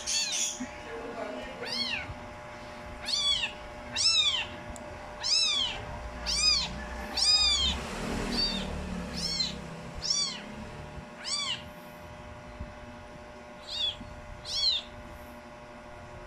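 Very young kittens mewing: about a dozen high-pitched mews, each rising and falling in pitch, roughly one a second, with a short pause before two final mews.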